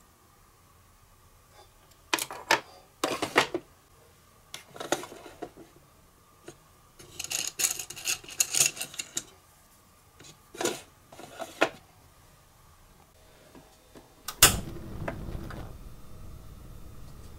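Tiny plastic and metal miniature cookware clicking and clattering as a toy pot is handled and set on a toy stove and a small utensil drawer is opened, with a quick cluster of rattles about halfway through. Near the end a sharp click as the stove knob is turned, then a steady low rushing sound of a lit gas burner.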